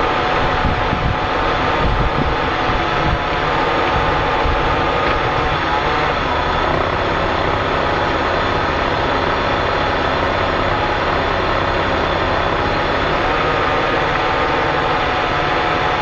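1994 Ford Taurus 3.8-litre V6 engine running steadily at idle.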